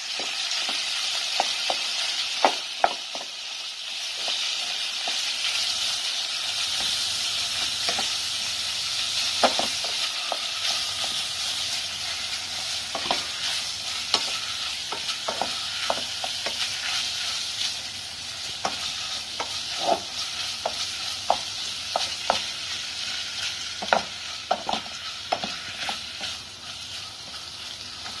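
Ground beef sizzling in a hot pot while a wooden spatula breaks it up and stirs it, knocking against the pot every so often, sometimes several times in quick succession. The sizzle grows quieter in the second half.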